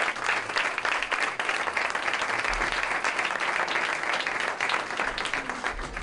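Applause from a room full of people clapping, dense and steady, beginning to die away at the very end.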